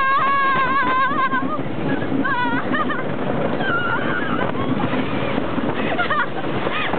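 Riders on a wooden roller coaster screaming in several high, wavering bursts, over a steady rush of wind and the rumble of the moving train.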